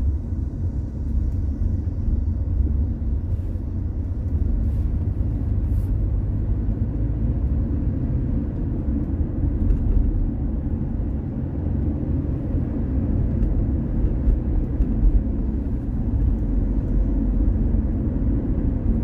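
Steady low rumble of a car driving along a road, engine and tyre noise with no sharp changes, and a few faint clicks in the first several seconds.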